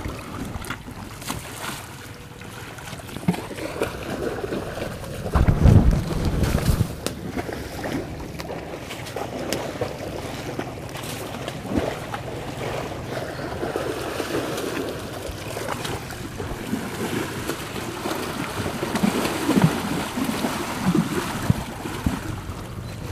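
Muddy water splashing and sloshing as a baby Asian elephant plays, kneels and rolls in a shallow puddle, with irregular splashes throughout. A loud low rumble comes about six seconds in.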